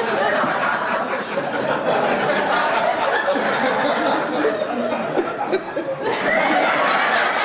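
A large audience laughing together after a comedian's punchline.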